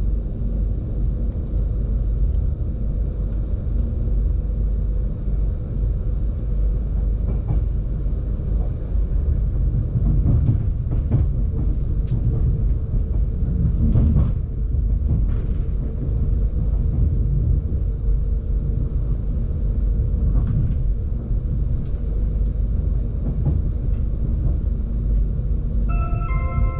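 Avanti West Coast Pendolino electric train running, heard from inside the carriage: a steady low rumble with scattered clicks and knocks from the wheels crossing rail joints and points. A multi-tone chime starts near the end.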